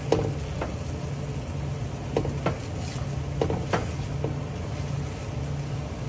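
Silicone spatula stirring and tossing noodles in a hot stainless steel frying pan, with several light knocks of the spatula against the pan over faint sizzling. A low steady hum runs underneath.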